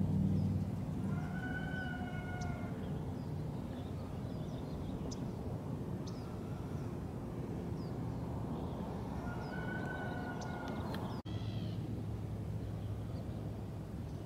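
Outdoor background: a steady low rumble with scattered short bird chirps, and twice a drawn-out pitched call or tone lasting about a second and a half, near the start and again past the middle. The sound cuts out for an instant at about eleven seconds.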